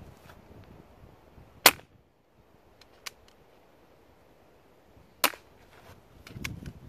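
SMK CP2 .22 CO2 air pistol fired twice through a chronograph on a fresh CO2 capsule, each shot a short sharp crack, about three and a half seconds apart. Fainter clicks come between and after the shots.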